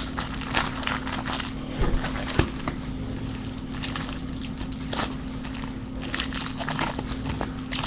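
Foil trading-card packs crinkling and rustling as they are shuffled by hand and set down in a pile, a run of small crackles and clicks with a few sharper ones about two seconds in.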